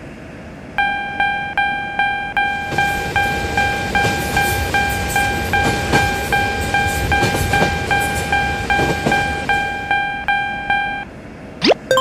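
Japanese railroad crossing warning bell ringing 'kan-kan' at about two and a half strikes a second, starting about a second in and stopping near the end. A train rumbles past through the middle of the ringing.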